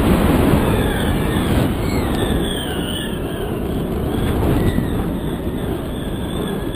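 Wind rushing over a kite-borne GoPro camera's microphone: a steady low roar with faint wavering high whistles.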